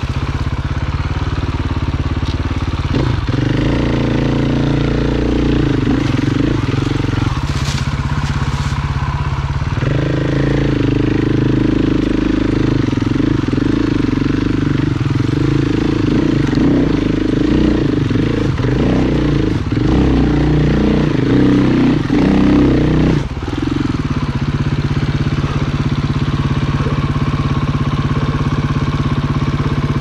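Dirt bike engine running at low revs on technical trail, the engine note stepping up and down several times as the throttle opens and closes, with a brief drop about two-thirds of the way through.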